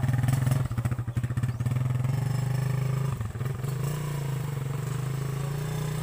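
Small motorcycle engine running as the bike pulls away carrying two riders. The low engine note is uneven in the first second or two, dips briefly about halfway through, then runs steadily.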